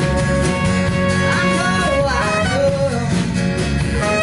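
Live band music: guitars over a steady bass and drums, with a voice holding sung notes between the lyric lines.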